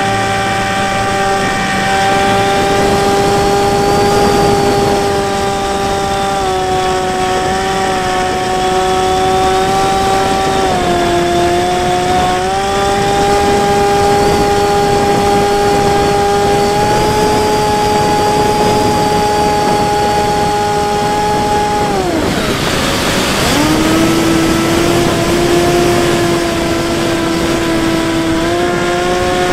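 Onboard sound of a HobbyKing Bix3's electric pusher motor and propeller in flight: a steady whine over wind rush, its pitch shifting slightly with throttle. About 22 seconds in, the whine drops sharply with a burst of wind noise, then comes back at a lower pitch.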